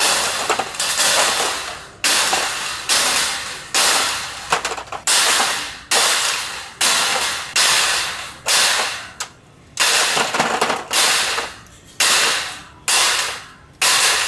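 Plastic PVC tee fittings dropped by the handful into a metal wire shopping cart, clattering against the wire and each other. Sharp clatters come a little under once a second, each fading quickly.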